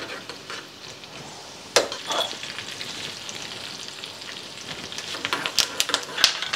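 Curry leaves, cumin and pepper sizzling in very hot ghee in a small tempering pan (tadka) as a metal spoon stirs them: a steady sizzle with sharp crackles, and a quick run of crackles near the end.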